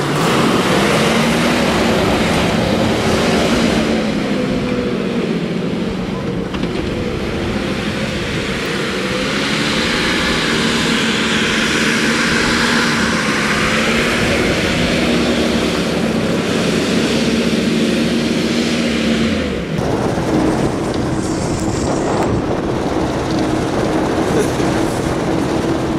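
GMC tow truck engine held at high revs, its pitch wavering up and down, as the truck spins its wheels in circles on dirt. About twenty seconds in it cuts suddenly to a steady engine hum.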